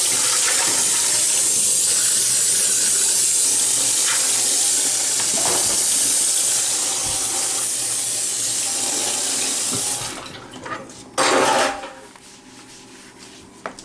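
Tap water running steadily into a sink, shut off about ten seconds in, followed by one short burst of sound about a second later.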